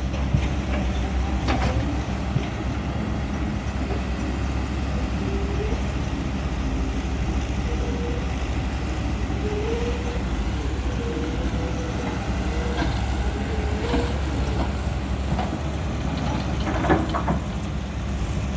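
Hydraulic excavator's diesel engine running steadily while digging, with a wavering whine rising and falling over the second half.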